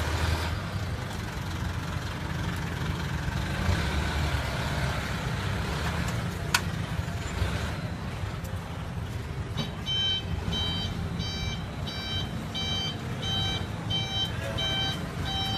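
Steady low engine-like rumble with street noise; from about ten seconds in, a repeating electronic beep sounds about twice a second, and there is a single sharp click about six and a half seconds in.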